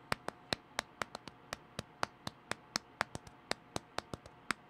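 Faint, sharp taps and clicks, about four a second, from rubber-gloved fingertips tapping on a rubber wrestling action figure.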